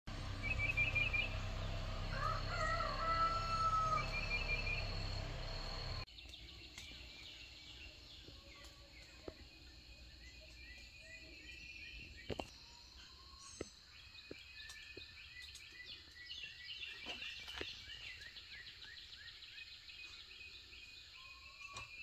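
Wild birds chirping and singing, with several overlapping calls and a low rumble under the first few seconds. About six seconds in, the sound cuts suddenly to a quieter stretch of birdsong: many short falling chirps and a few sharp clicks.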